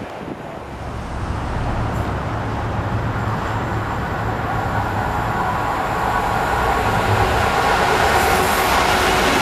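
Freightliner Class 66 diesel locomotive approaching at the head of a container train: a low two-stroke V12 engine note and rail noise growing steadily louder as it nears.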